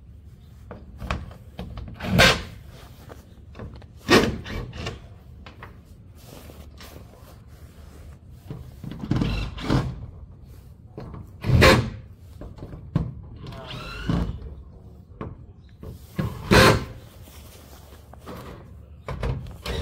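Intermittent knocks and bangs, about six spread out with pauses between, from an old sectional garage door being taken apart and removed by installers.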